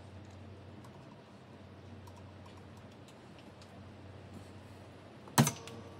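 Handling noise from a microphone being adjusted on a scissor boom arm and shock mount: faint scattered clicks, then one loud clunk with a brief ring about five and a half seconds in.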